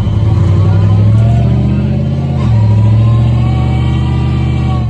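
Monster truck engine running hard and revving under acceleration, heard from on board the truck. The engine note dips briefly about halfway through, then picks up again.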